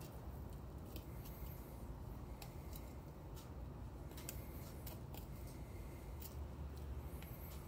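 Knife cutting breast meat off a Canada goose carcass: faint, irregular clicks and scrapes as the blade works along the breastbone, over a low steady hum.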